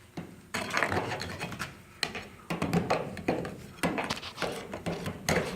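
Irregular knocks, thunks and rustling scrapes as mouse-nest debris and chewed insulation are pulled and handled inside the old truck's body.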